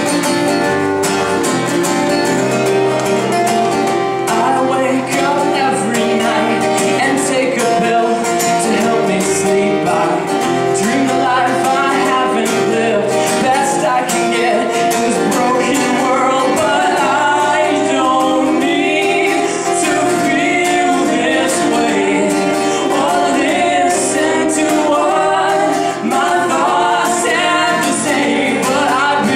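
Live band performing a song: strummed guitar with a sung vocal line coming in about four seconds in.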